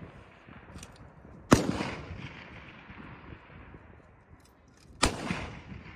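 Two precision rifle shots about three and a half seconds apart, each sharp crack trailing off in an echo across the open range.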